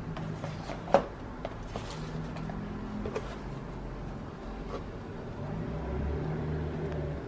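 A cardboard gift box and its packaging being handled: a sharp tap about a second in, then a few light rustles and clicks, over a steady low hum.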